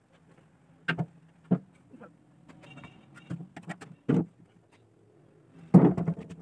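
A rusty metal generator fuel tank knocking and bumping against a concrete floor as it is tipped up and turned by hand. A few separate knocks come first, and a louder clatter near the end as it is set back down flat.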